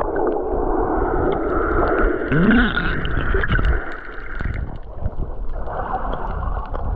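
Muffled sea water sloshing and gurgling, heard from at or just below the surface, with a brief muffled tone that rises and falls in pitch about two and a half seconds in.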